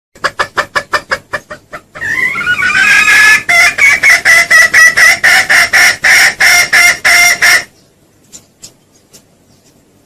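Junglefowl calling loudly: a quick run of short clucks for about two seconds, then a long series of loud pulsed calls that stops suddenly near the end. This is a lure call used to draw in wild junglefowl.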